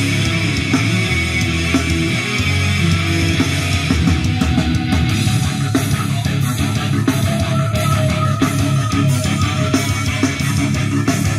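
Rock music with electric guitar playing steadily, plausibly played back from the CD changer through the Alpine 7296J car stereo under test.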